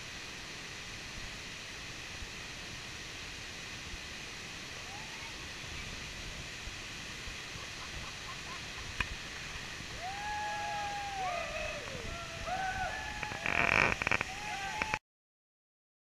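A 30–40 ft waterfall rushing steadily into a pool. In the last few seconds several long rising-and-falling calls and a loud shout-like burst come over it, and then the sound cuts off.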